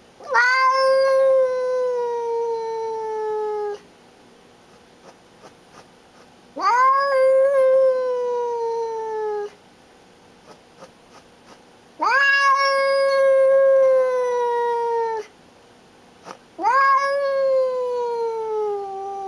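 A tortoiseshell-and-white house cat yowling four times, each a long drawn-out call of about three seconds that swoops up and then slowly sinks in pitch. It is a territorial warning yowl at a strange cat on the other side of a glass door.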